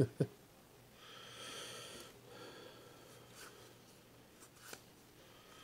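Quiet handling of Pokémon trading cards as they are moved from one stack to the other, with two soft thumps at the start and a few faint clicks later. A breath out through the nose comes about a second in.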